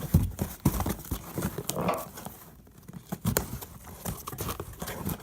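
A cardboard shipping package being handled and opened by hand: irregular knocks, taps and rustling.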